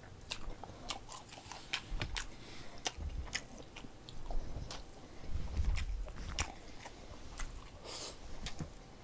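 A man chewing a mouthful of food close to the microphone, with many short, sharp mouth clicks and smacks scattered throughout and a few low, muffled thuds.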